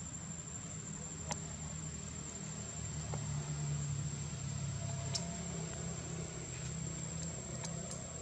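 Steady low mechanical hum under a constant high-pitched insect drone, with a few faint clicks.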